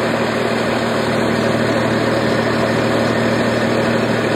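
An engine idling steadily: a low, even hum under a wash of noise, loud and unchanging.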